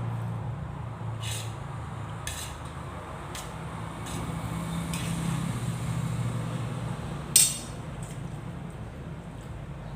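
Cutlery clinking against a plate during a meal: a series of light clicks about a second apart and one louder, sharper clink past the middle, over a steady low hum.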